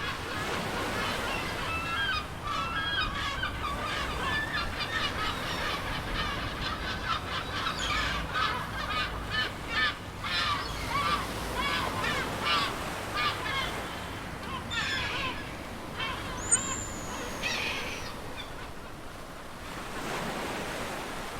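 A flock of birds calling, many quick overlapping calls with a high whistle-like note about two-thirds of the way through, over the steady wash of ocean surf. The calls die away near the end, leaving the surf.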